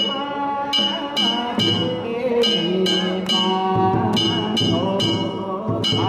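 Danjiri festival music: small hand-held bronze gongs (kane) struck in a repeating pattern of quick groups of three, ringing brightly, over voices that rise and fall underneath.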